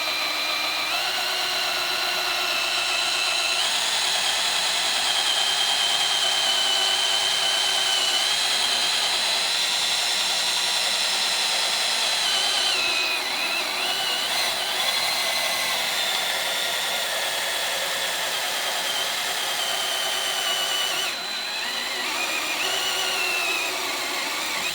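Handheld electric drill running steadily under load as its twist bit bores slowly into an oiled steel piece held in a clamp, with a high whine whose pitch wavers and dips a couple of times as the pressure changes.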